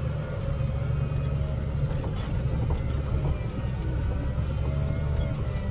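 Volvo L60H wheel loader's diesel engine running steadily, heard from inside the cab as it drives, a low drone with a faint whine that rises and falls slightly.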